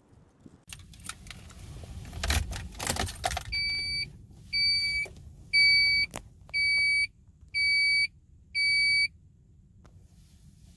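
Keys jangling, then the 1991 Honda Prelude's in-car warning chime beeping six times, about once a second, as the car is readied to start.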